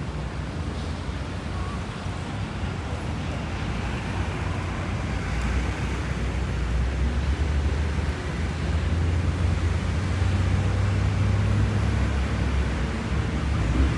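City street traffic: cars driving past on the road, a steady rumble that grows louder over the second half.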